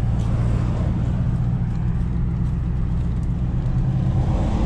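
Pickup truck engine and road noise heard from inside the cab while driving: a steady low drone.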